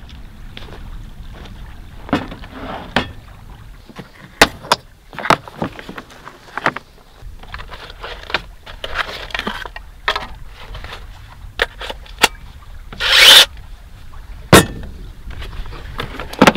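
A run of irregular knocks and clicks, with a short rushing noise about thirteen seconds in, over a low steady rumble.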